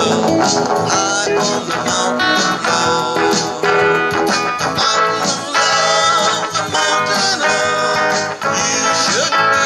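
Two archtop electric guitars playing together, an instrumental passage of plucked notes and chords without singing.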